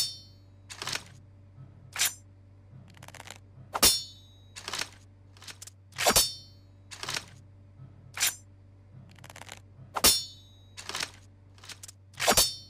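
Katana sword sound effects: a series of short swishes and metallic rings, about one a second, several of the louder ones ringing on briefly with a high metallic tone. A faint low hum runs underneath.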